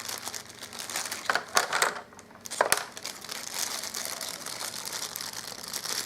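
Packaging being handled, crinkling and rustling, with a brief lull and a single sharp click a little over two and a half seconds in.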